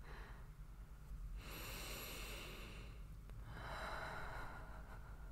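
A woman's close-miked breathing: a long sniff in, about one and a half seconds, then a slower breath out, as if smelling someone.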